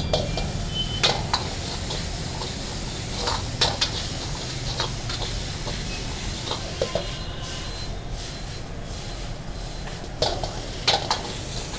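Fried rice being stir-fried in a large wok: a steady sizzle, with a long metal ladle scraping the pan and knocking sharply against it now and then, several knocks in quick succession near the end.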